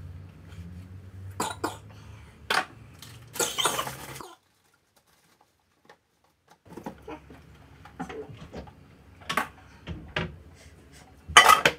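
A person coughing a few times, with light clicks and knocks of handling in between. The sound cuts out completely for about two seconds in the middle, and the loudest cough comes near the end.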